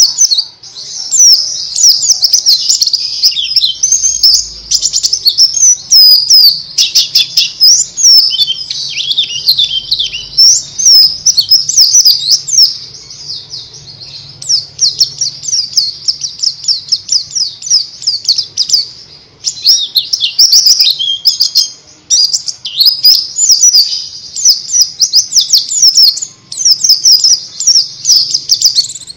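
White-eye (pleci) singing a fast, high-pitched twittering song: a dense run of quick chirps with a few short breaks.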